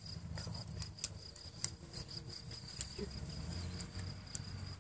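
A cricket singing, a steady high trill, over a low rumble, with a few faint clicks.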